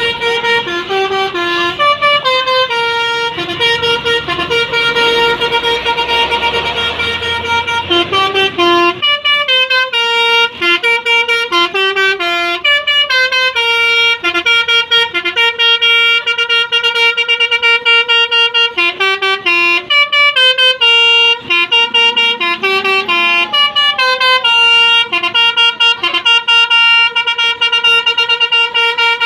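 Bus 'basuri' musical air horn playing a quick melody of many short stepped notes. For the first nine seconds or so a bus engine's noise runs underneath, then the melody sounds alone.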